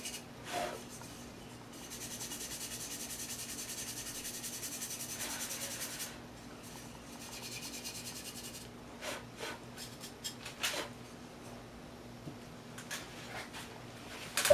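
Fast, scratchy rubbing of a cleaning tool over an unfired clay (greenware) mug, keeping on steadily through the first half, then quieter handling with a few light taps and clicks.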